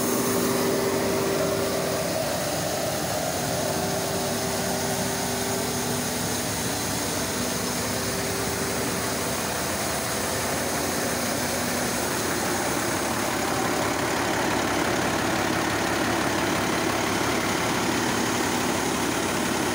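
Diesel engine of an Adriatic TD 9006 A tractor running steadily at idle while its hydraulics tip a trailer of wheat for unloading.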